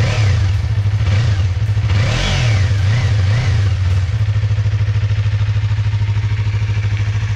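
2020 Yamaha MT-03's 321 cc parallel-twin engine running, heard close to its exhaust. It is revved up and down a few times in the first half, with the biggest blip about two seconds in, then settles to a steady idle.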